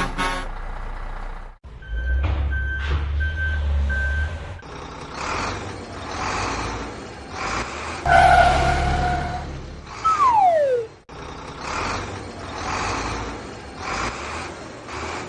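Cartoon construction-vehicle sound effects. An engine rumble with four short reversing beeps comes first, then noise pulses about once a second. About eight seconds in there is a horn-like blare, followed by a falling whistle.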